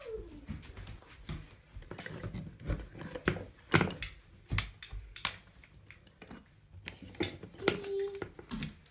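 Irregular clicks and knocks of small hard objects being handled and set down on a bathroom counter.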